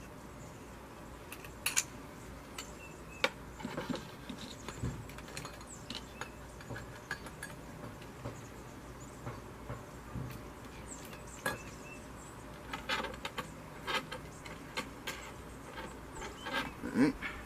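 Scattered small clicks and light metal clinks of a saw blade and its pin being fitted into a homemade wooden breakdown bow saw, coming closer together near the end.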